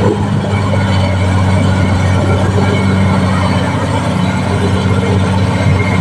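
Caterpillar D6R XL bulldozer's diesel engine running with a steady, even drone.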